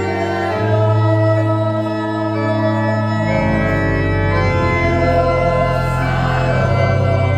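Mixed church choir singing with electronic organ accompaniment. The organ holds sustained chords whose bass note changes every second or two.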